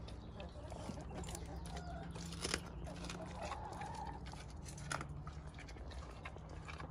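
A Doberman eating raw food from a stainless steel bowl: chewing and mouthing the meat, with two sharp clicks about two and a half and five seconds in. Short wavy clucking calls sound in the background.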